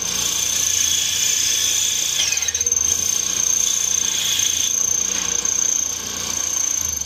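Small 1/4-horsepower bandsaw running and cutting copper pipe: a steady high whine with the blade grinding through the metal, and a short falling squeal about two seconds in. The saw is underpowered and barely gets through the pipe.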